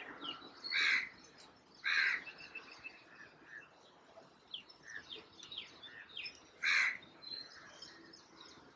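Birds calling: many short high chirps, with three much louder calls about a second, two seconds and seven seconds in.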